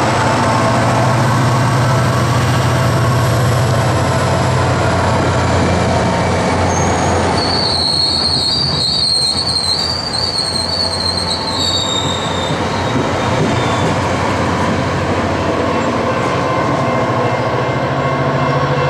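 SunRail commuter train pulling away past the platform: the MP32PH-Q diesel locomotive's engine hum and the bi-level coaches rolling over the rails. A high-pitched wheel squeal sounds for several seconds midway.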